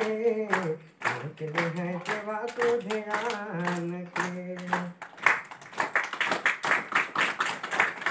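A song sung with steady rhythmic hand clapping; the singing ends about five seconds in and the clapping carries on alone.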